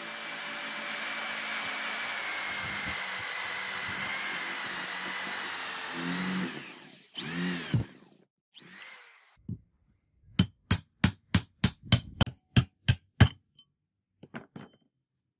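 Electric drill boring out the remains of an old wooden handle lodged in a steel hammer head's eye. The drill runs steadily for about six seconds, then spins up and down in two short bursts. After that comes a quick run of about ten sharp knocks, roughly three a second.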